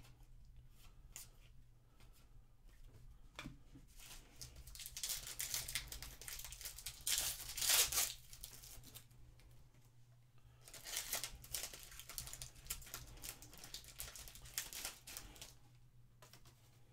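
Foil wrapper of a 2023 Panini Legacy football card pack being torn open and crinkled. The crackling comes in two spells, the louder about five to eight seconds in and again from about eleven to fifteen seconds, with light clicks of cards being handled between.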